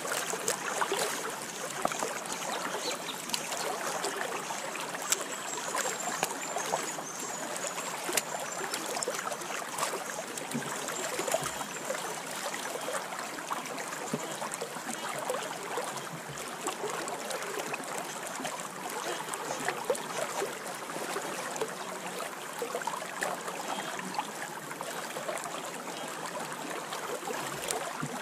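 Shallow creek water running steadily over stones, with the sloshing of a plastic gold pan being swirled and dipped in the water as gravel is panned down.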